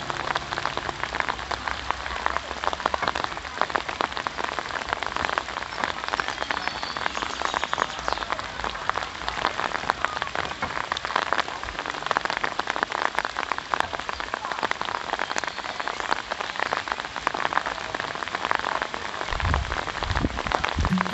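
Steady rain falling, a dense even pattering of drops.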